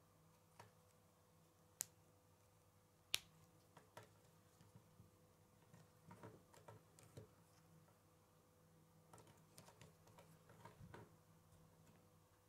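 K'nex plastic pieces clicking and snapping as connectors and rods are pushed onto a wheel hub: scattered quiet clicks, with two sharp snaps about two and three seconds in, and clusters of softer handling clicks later.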